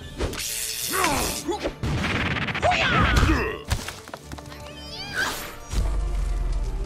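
Cartoon fight sound effects: several hits and crashes and a few short cries, over background music.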